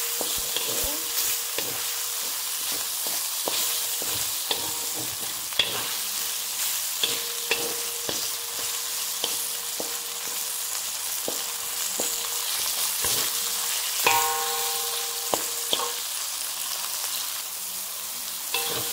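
Sliced beef, garlic and ginger sizzling steadily in hot oil in a wok, while a wooden spatula stirs them, scraping and knocking against the pan at irregular intervals.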